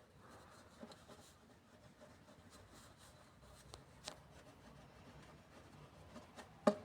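Faint scraping and rubbing of soldering work on a metal organ pipe, with a few light taps and a sharper knock near the end.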